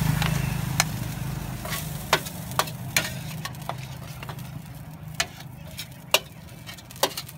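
Metal spatula scraping and clacking against a large steel wok as fried noodles are lifted out, a dozen or so sharp scrapes and taps over a faint sizzle. A low hum fades away over the first couple of seconds.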